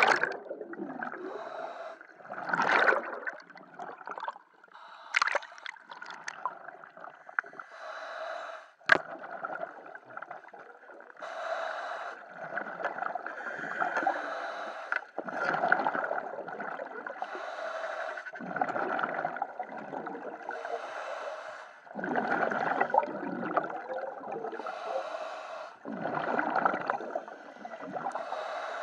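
Scuba diver breathing through a regulator in a full-face mask, heard through the mask's underwater communication microphone: hissing inhalations and gurgling exhalations every two to four seconds, with a single sharp click about nine seconds in.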